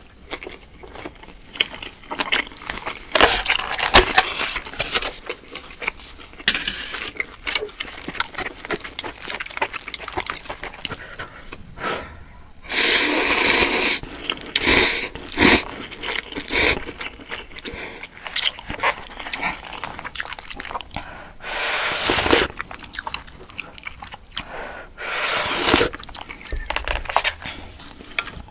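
Eating sounds: chewing grilled skewered meat, with a long slurp of cup ramen noodles about 13 seconds in and a few shorter slurps later.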